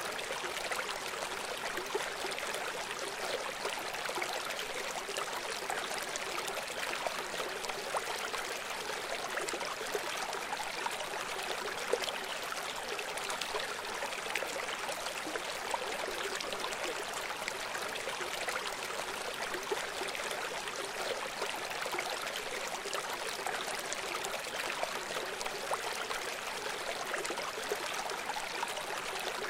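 A river flowing: a steady, even wash of water noise with small splashes.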